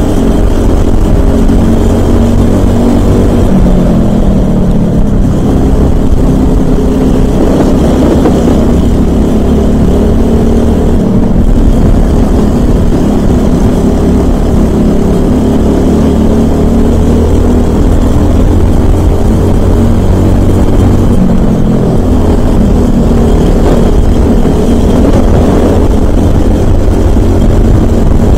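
Briggs & Stratton LO206 single-cylinder four-stroke kart engine running flat out and close to the microphone, its revs repeatedly falling and rising as the kart brakes for corners and accelerates out of them.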